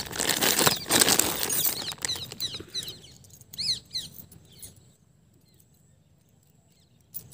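Handling of gold-plated jewellery over a box of plastic-bagged pieces: rustling of plastic and packing with light jangling of metal for about three seconds. Then come a few short, high chirps, and it falls almost quiet.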